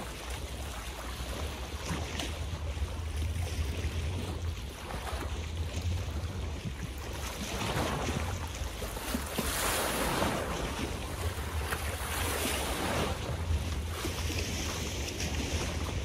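Water splashing and lapping in small waves, growing louder about halfway through, with wind rumbling on the microphone.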